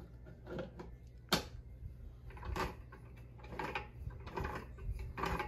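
Light plastic clicks and knocks of a toy blender being handled: its base button pressed and its jar moved about, irregularly, with one sharper click a little over a second in.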